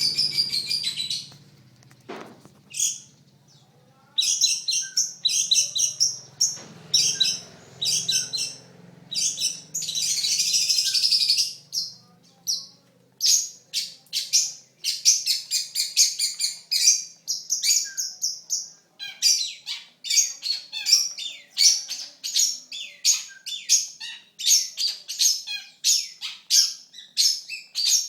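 Long-tailed shrike (pentet) singing: fast runs of sharp, high-pitched chattering notes, with a harsh scratchy stretch about ten seconds in and a brief pause near the start, then a dense, almost unbroken stream of rapid notes through the second half.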